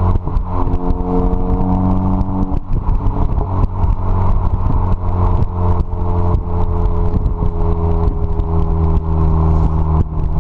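Car engine running steadily through an AWE Tuning Track Edition aftermarket exhaust, with a deep, loud exhaust note. The tone shifts briefly about two and a half seconds in, then holds steady again.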